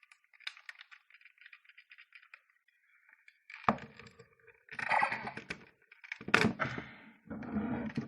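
Hard plastic toy morpher being handled: light rattling and clicking, then two sharp plastic cracks with scraping rattles between them.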